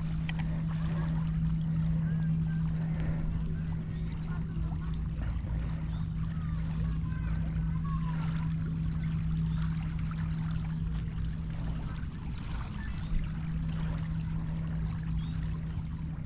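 Small waves lapping at a pebble shoreline, under a steady low hum and a low rumble.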